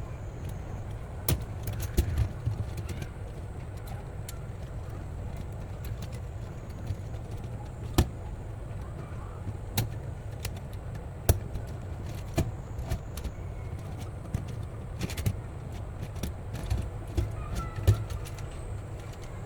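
Wind rumbling on the microphone, with irregular sharp clicks and knocks every second or two.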